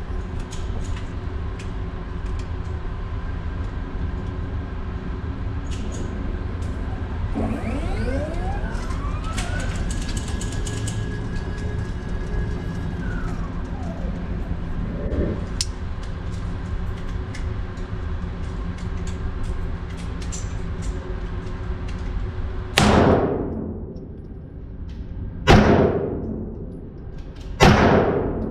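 Three 9mm pistol shots about two and a half seconds apart near the end, each sharp with a ringing tail, over steady background noise. Earlier a whine rises, holds and falls away.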